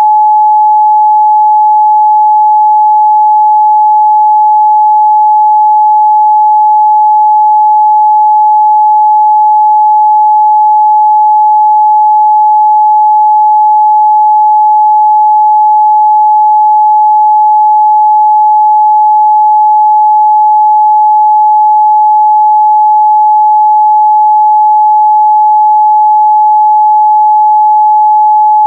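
Continuous 852 Hz sine-wave test tone, a single pure pitch held steady and loud with no change.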